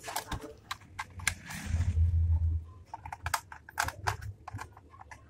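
Irregular clicks and taps of a plastic remote-control toy car body being handled and turned over by hand, with a low rumble twice in between.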